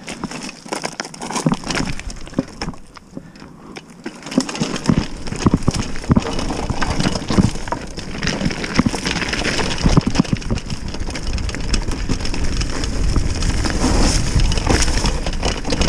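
Mountain bike on a downhill trail. It opens with a few seconds of quieter scattered clicks and knocks. From about five seconds in comes a steady low rumble of wind on the microphone, with the bike rattling and knocking over rough ground.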